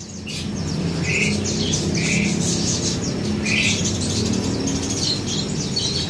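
Many small caged songbirds chirping and calling at once in quick high chirps, with a few lower squawky calls standing out. A steady low rumble runs underneath.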